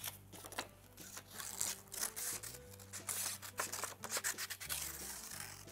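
Scissors snipping through paper in a series of irregular cuts, over soft background music with sustained low notes.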